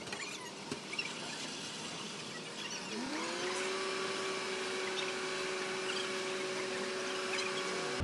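Car fire burning with a steady rushing noise and light crackling. About three seconds in, a whine rises in pitch and then holds steady to the end.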